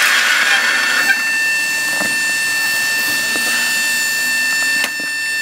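Mobile band sawmill running, giving a steady high whine, with a couple of short knocks as the log is handled on the mill bed.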